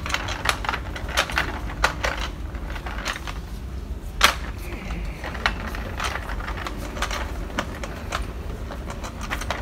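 Footsteps clicking on a hard floor at walking pace, about two a second, with one louder knock about four seconds in, over a low steady hum.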